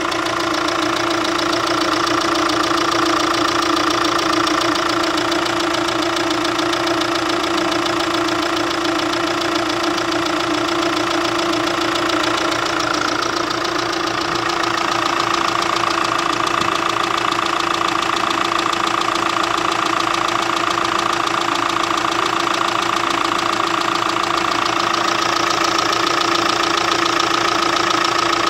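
The 2015 LDV V80 van's 2.5-litre turbo-diesel engine idling steadily.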